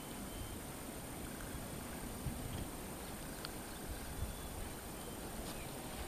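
Outdoor ambience of wind rumbling on the microphone, uneven and gusty, with a few faint clicks.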